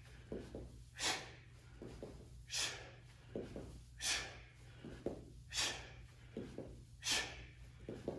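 A man's sharp, forceful exhalations, about one every second and a half, as he repeatedly drops to touch the floor and springs back up during a Krav Maga conditioning drill. Softer short sounds come in between.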